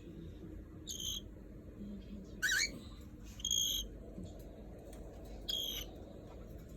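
Cockatiel chirping: four short, high chirps spaced a second or two apart, the second a louder sweeping call.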